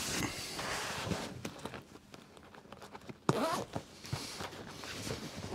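Rustling and scraping of fabric and foam as a cushion cover is tugged over its foam and the zip is worked along, with scattered small clicks. The sound drops away about two seconds in and picks up again after about three seconds.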